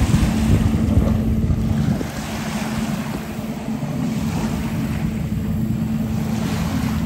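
Personal watercraft engine running steadily at speed as the jet ski passes, with the hiss of its spray and wind buffeting the microphone.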